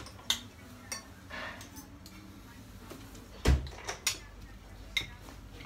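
Spoons and forks clinking now and then against plates during a meal, with one louder, deeper thump about three and a half seconds in.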